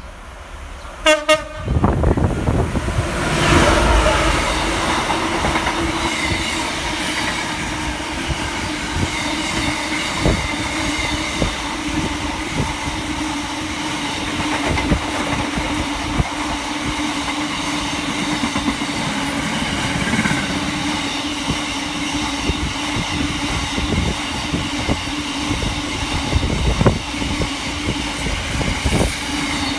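Class 66 diesel freight locomotive 66548 gives a short blast on its two-tone horn about a second in, then runs past at speed. A long container train follows with a steady rumble and a rapid clatter of wagon wheels over the rail joints, and a steady hum runs underneath.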